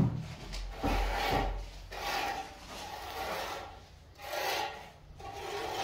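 A sharp thump, then about four rough rasping scrapes on a gritty surface, each lasting half a second to a second.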